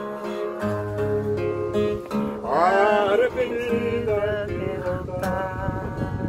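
A man singing to his own classical acoustic guitar, with plucked and strummed chords under his voice. His singing swells into a louder held phrase about two and a half seconds in.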